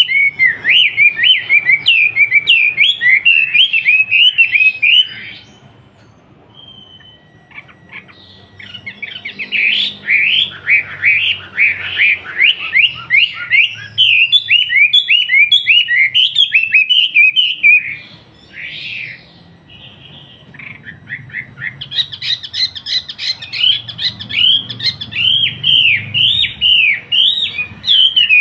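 Wambi songbird singing in long, fast runs of repeated high, sweeping chirps, breaking off twice for a few seconds before resuming; a bird in full song ('gacor').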